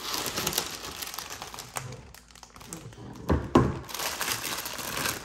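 Clear plastic parts bags crinkling as hands pull a bag of Lego pieces out of the box and handle it, with a couple of louder bumps about three and a half seconds in.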